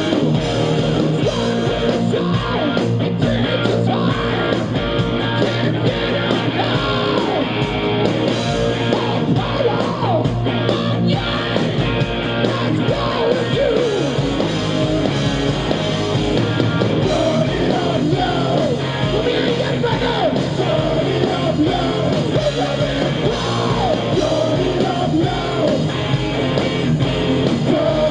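Live heavy metal band playing at full volume: distorted electric guitars, bass and drums, with a male singer's vocals over them.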